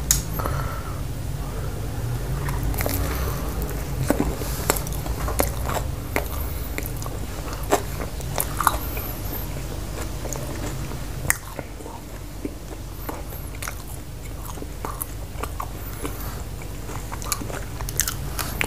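A person chewing a mouthful of chicken pizza, heard close up, with many sharp clicks of crust and mouth noise that are densest in the first half, over a low steady hum.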